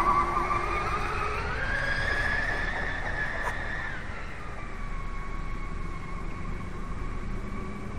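High whine of a 34-inch RC catamaran's twin brushless motors (14.8-volt, 36 mm) running at speed. The pitch climbs about a second and a half in, holds, then drops near the middle and stays lower.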